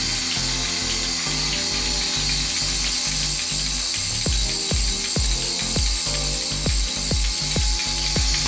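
Portable bucket milking machine running: its pulsator clicks in a steady mechanical rhythm of about two beats a second.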